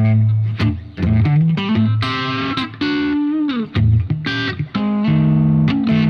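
Electric guitar played on the middle pickup through an Origin Revival Drive overdrive and an R Weaver FX Scarlet Vibe into a Diezel Schmidt amp: a dark, vintage overdriven tone. A phrase of single notes and chords with a few bends and a sliding note about three seconds in.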